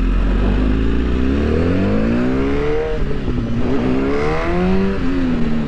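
2016 BMW S1000RR inline-four engine pulling away at low speed. Revs climb twice, each climb cut off by an upshift, then hold steady.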